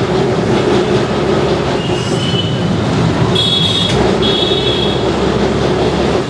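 Kolkata tram running along street track, heard from on board: a steady rumble and rattle of the car and its wheels, with short high squeals about two seconds in and again around three to five seconds in.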